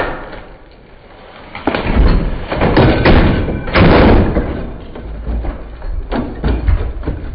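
A sharp mallet blow on a 1953 Dodge three-speed transmission case, then the heavy transmission tumbling off the workbench: loud crashing and banging for a couple of seconds, with a few more thuds near the end.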